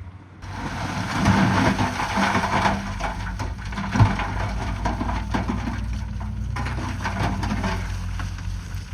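Bulldozer diesel engine running steadily under load while rock grinds and crunches, with dense crackling and one sharp knock about four seconds in.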